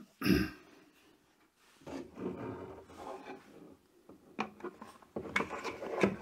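Frizzlife under-sink water filter cartridge being fitted up into its plastic base and twisted in: irregular scraping and creaking of plastic on plastic in a few short spells.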